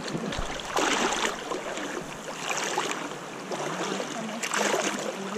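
Legs wading through shallow seawater: water sloshing and swishing around the legs, rising in about three surges, one with each stride.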